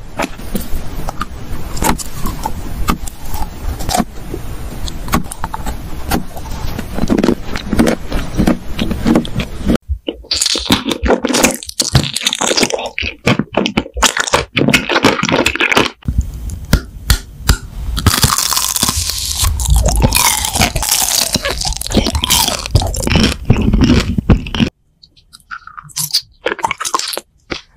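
Close-miked eating sounds: crunching, chewing and wet mouth clicks, changing abruptly every few seconds as one short clip follows another. Near the end the sound becomes quieter and sparser.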